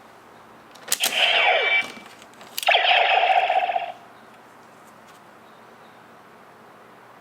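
DX Neo Decade Driver toy belt: two sharp plastic clicks as the belt is worked, each followed by about a second of electronic sound effect from its speaker. After the first comes a falling sweep, after the second a steady buzzing tone; then only a faint hum.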